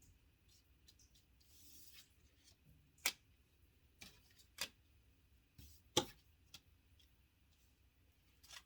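Tarot cards handled on a table in a quiet room: a soft sliding rustle, then a few sharp clicks and taps, the loudest about a second and a half apart, with fainter ticks between.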